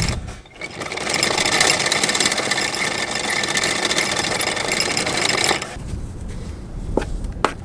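Anchor chain running out over the windlass and bow roller in a fast metallic rattle that stops abruptly after about five seconds, followed by a few separate clinks of chain links handled by hand.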